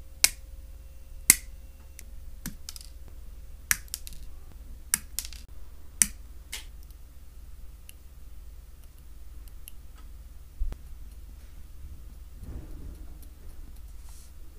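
Hobby nippers snipping plated plastic model-kit parts off the runner: sharp snips, about eight over the first seven seconds, then only quiet handling of the parts.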